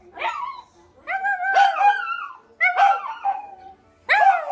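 Small dog howling, head thrown back: four howls in a row, each sliding up and then down in pitch, the second the longest.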